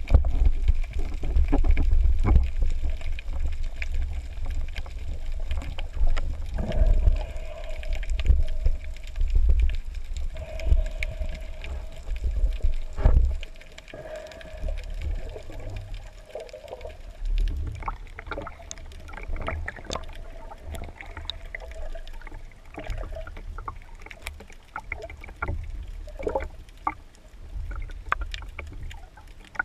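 Underwater ambience: a low rumble of water moving, louder in the first half, with scattered clicks and crackles. A steady hum runs from about seven seconds in until near the end.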